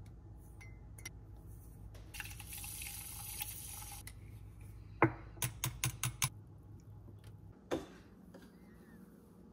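Coffee being made in a mug: liquid poured in for about two seconds, then a quick run of sharp clicks and taps, with one more click near the end.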